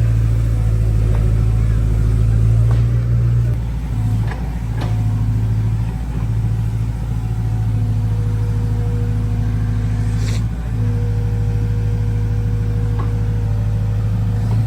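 Heavy diesel machinery engine running steadily under load, with a few sharp knocks, about four, over the engine noise.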